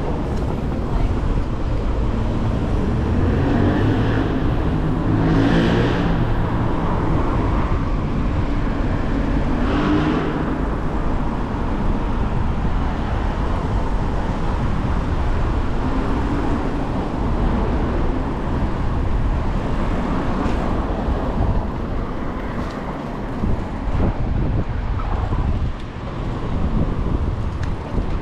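City street traffic heard from a moving bicycle: steady road noise, with motor vehicles passing close by, one swelling and fading between about three and six seconds in and another around ten seconds.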